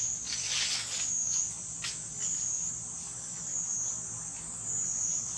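Insects droning at a high pitch, the sound swelling and fading every second or so, with a few faint rustles about two seconds in.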